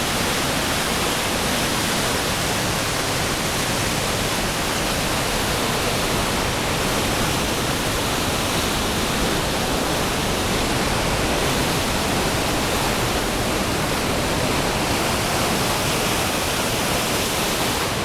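Upper Falls of the Yellowstone River: a heavy waterfall pouring over the brink, a steady, dense rush of falling water that never lets up.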